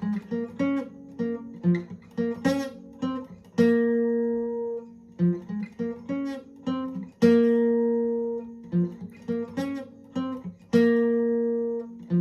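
Unaccompanied guitar tuned a half step down playing a picked single-note lead riff. The phrase repeats three times, each ending on a held, ringing double note.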